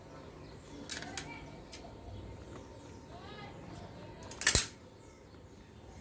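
Packaging being handled and opened: a few light clicks and taps, then a louder sharp clack about four and a half seconds in.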